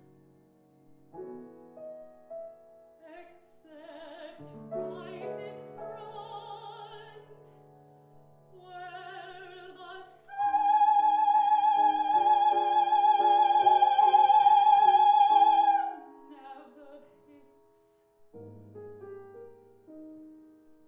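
A woman singing an opera aria with grand piano accompaniment. About ten seconds in she holds one long, loud high note with vibrato for some five seconds, and near the end the piano plays on alone.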